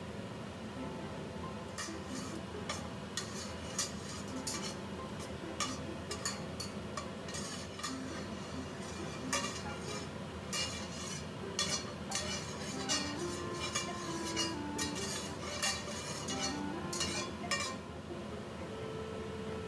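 Metal slotted spatula scraping and clinking against a stainless steel frying pan in many quick, irregular strokes, stirring lumps of sugar as they melt and caramelise in oil. Faint background music underneath.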